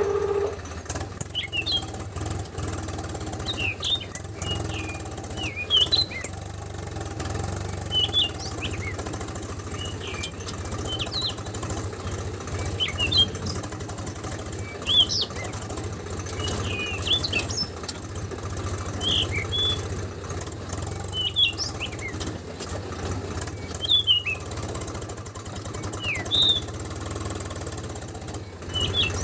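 A bird chirping over and over, short calls every second or two, over a steady low hum.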